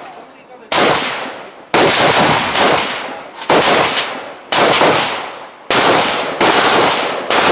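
Rifle shots on a range firing line: about eight sharp reports at irregular intervals of roughly a second, each trailing off in a long echo.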